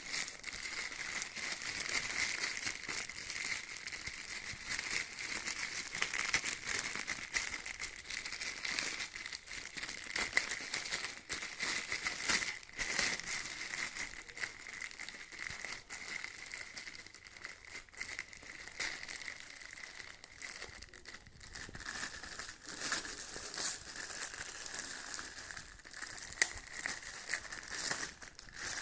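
Packaging being handled, crinkling and rustling in irregular bursts throughout, with a thin steady high tone underneath.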